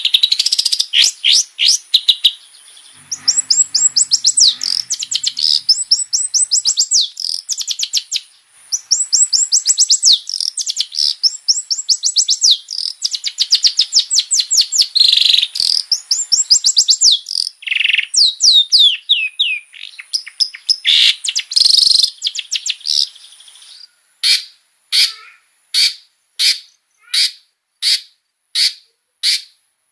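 Long-tailed shrike singing a fast, chattering song of rapid repeated high notes and trills. About 24 seconds in it changes to a single sharp note repeated evenly, about one and a half times a second.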